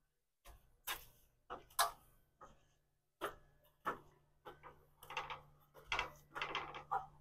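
Someone climbing a fiberglass stepladder with metal steps: a string of irregular clunks and taps as shoes land on the steps and the ladder shifts under the weight.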